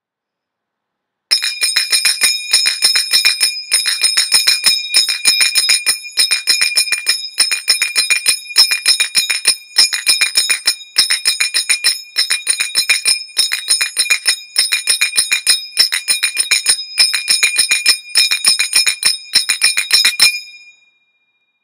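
Finger cymbals (zills) playing the running sevens pattern at a quicker tempo: fast runs of bright, ringing strikes with short breaks between the runs. It starts about a second in and stops about a second before the end, leaving a brief ring-out.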